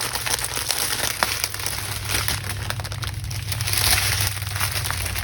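Small plastic bags of diamond-painting drills crinkling and rustling as they are handled and sorted, with scattered small clicks.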